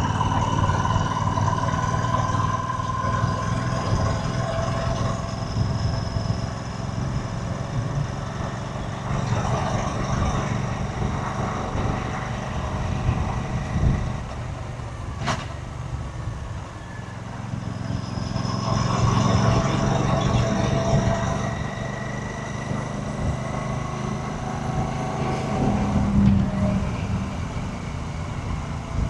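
Royal Enfield 650 parallel-twin motorcycle engine running on the move, its exhaust note easing off around the middle and then building again.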